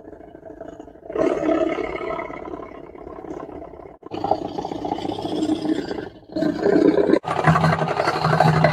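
RC model workboat's simple mechanical engine sound generator knocking in a fast, even rattle, an approximation of an engine room. The sound breaks off and starts again several times. About seven seconds in, a louder rasping knock takes over, with a steady low hum under it.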